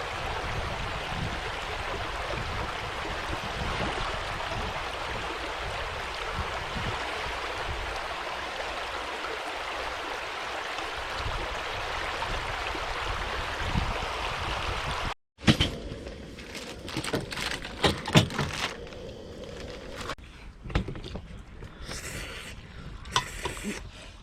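Flowing water rushing steadily for about fifteen seconds. It cuts off abruptly, and sporadic knocks and clicks follow.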